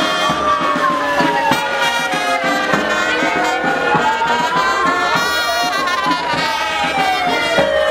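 A brass marching band playing with drums, while a police siren wails slowly up and down over it, rising and falling about every two and a half seconds.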